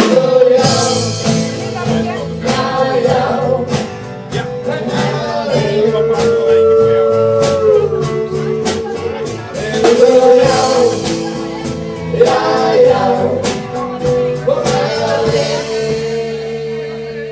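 Live rock band playing: vocals over acoustic and electric guitars and drums. Near the end a long held note rings on while the band fades down.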